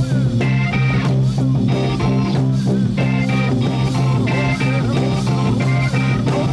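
Instrumental section of early-1970s hard rock: electric guitar playing a repeating phrase over held low notes and drums, with no vocals.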